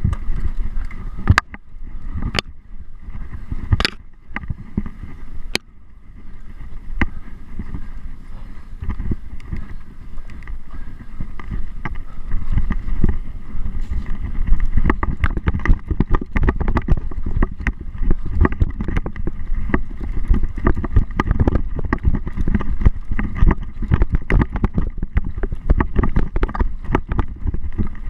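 Mountain bike ridden over a rough trail: a constant low rumble with many sharp rattles and knocks. The knocks are sparse at first, then the sound grows louder and busier about halfway through.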